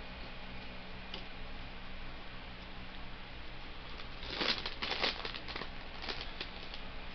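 Crinkling of a potato chip bag being handled, in a cluster of crackly rustles starting a little past halfway and dying out near the end, over a steady low hum.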